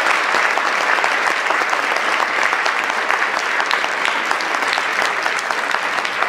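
Audience applauding: a dense patter of many hands clapping, easing off slightly toward the end.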